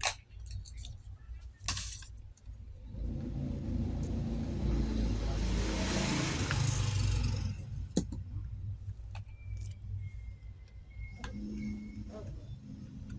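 Hot-air rework gun blowing for about four and a half seconds to desolder the SPI flash memory chip from the TV main board, with a few sharp clicks of tools on the board before and after.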